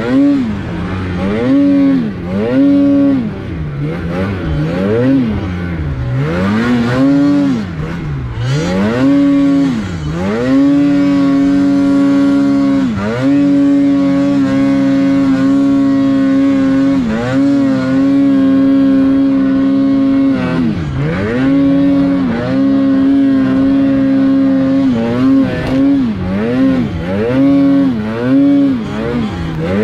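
Polaris RMK mountain snowmobile's two-stroke engine being throttled hard through deep powder. It revs up and down in quick blips, then holds a steady high pitch for several seconds at a time in the middle, with brief dips off the throttle, before the quick blipping resumes near the end.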